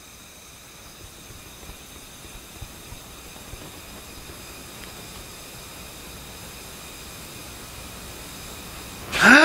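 A long, forceful exhale through a drinking straw, a steady airy hiss growing slowly louder for about nine seconds: a breathing exercise to build abdominal breath support. Right at the end a man's voice breaks in loudly.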